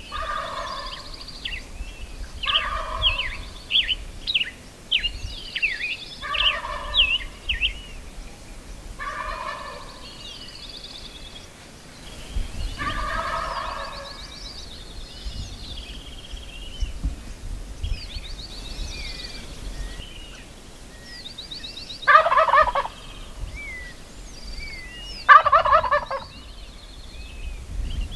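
Gould's wild turkey gobbling repeatedly: about five gobbles in the first half, then two louder gobbles near the end, with small songbirds chirping in between.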